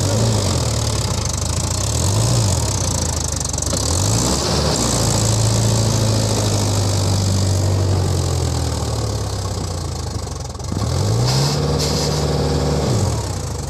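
Mahindra 4WD tractor's diesel engine revving up and down repeatedly, then held at high revs for several seconds, dipping and rising again near the end, as the tractor labours to free itself from deep wet mud.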